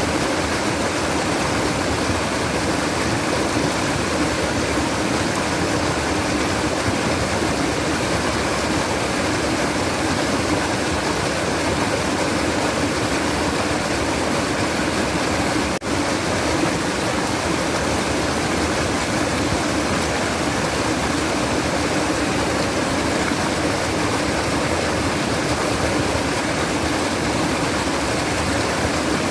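Babbling stream water, a steady, even rush of running water with a momentary drop in loudness about halfway through.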